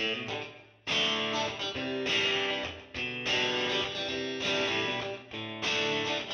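Background music: an instrumental track led by strummed guitar chords, growing fuller about a second in.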